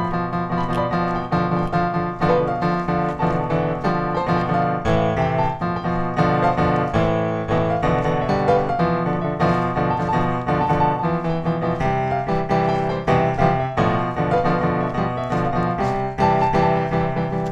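Background piano music, many notes struck in a flowing run.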